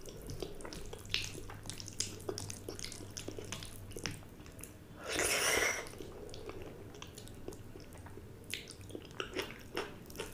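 Fingers squeezing and mixing water-soaked rice with dal in a glass bowl: soft wet squishing and small clicks and drips, with a brief louder rush of noise about five seconds in.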